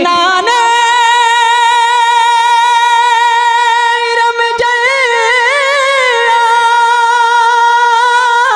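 A boy's high, sweet singing voice holding one long note of a naat, unaccompanied, through a microphone; about halfway through it breaks into a wavering run before settling back on the same note.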